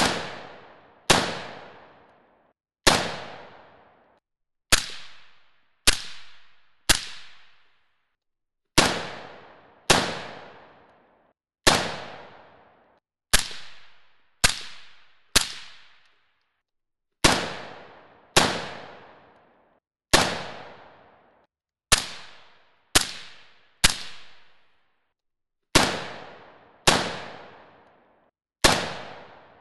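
Suppressed 5.56 AR-15 carbine fired through an AB Suppressor A-10 Warthog: about twenty single shots at an uneven pace, one every one to two seconds. Each shot cracks sharply and dies away over about a second.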